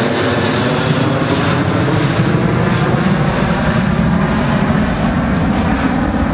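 Airliner engines making a loud, steady roar as the aircraft passes, the high hiss slowly fading over the few seconds.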